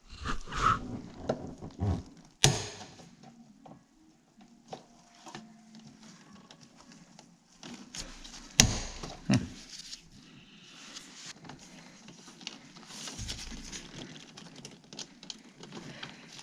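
Scattered clicks, knocks and scraping of a small pry tool working at the plastic clip that holds a car's clutch fluid reservoir in the engine bay. The sharpest knocks come about two and a half seconds in and about eight and a half seconds in.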